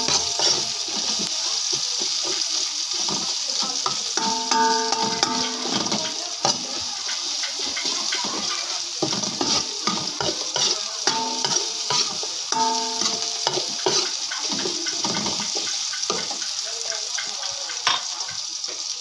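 Garlic, chili, onion and ginger sizzling in hot oil in an aluminium pot, with a steady hiss. A metal ladle clicks and scrapes against the pot as the aromatics are stirred.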